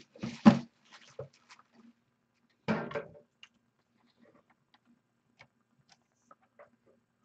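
Desk handling noises in a small room: two short, louder clunks and rustles within the first three seconds, then faint scattered clicks over a low steady hum.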